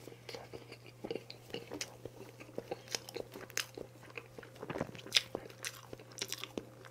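Close-miked chewing of chocolate-glazed sponge cake: a string of soft, wet mouth clicks and smacks. A few sharper clicks near the end as a metal spoon digs into the cake.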